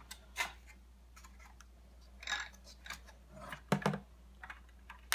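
Scattered light plastic clicks and rattles from a Cube 3 cartridge's segmented plastic feed tube being handled and moved about, with a soft rustle about two seconds in and a sharper click close to four seconds in.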